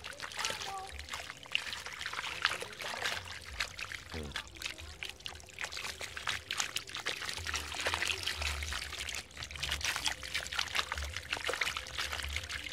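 Water splashing and trickling, with many small irregular splashes and drips.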